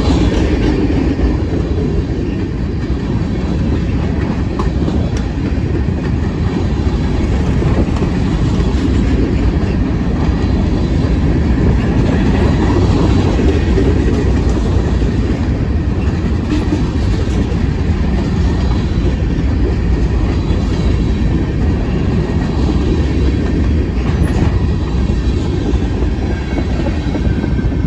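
Freight train cars, covered hoppers and tank cars, rolling past close by: a steady, loud rumble of steel wheels on rail.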